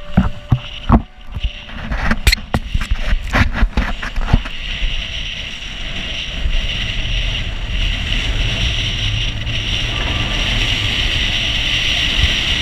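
Water rushing and splashing along a sailboat's hull with wind on the microphone. Sharp slaps and knocks come in the first few seconds, then it settles into a steady rushing hiss.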